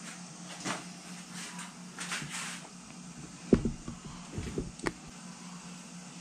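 Handling noises: a few light taps, then a heavy thump about three and a half seconds in followed by several smaller knocks, over a steady low hum.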